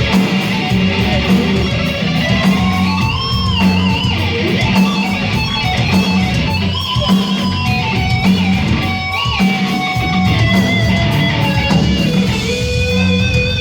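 Live hard-rock band playing: a distorted electric lead guitar plays bent, wavering notes over bass and drums, with no singing.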